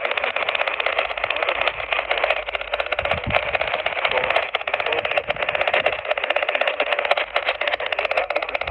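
Steady, harsh buzzing static from a weather radio receiver, a dense rapid crackle with no clear tones or voice.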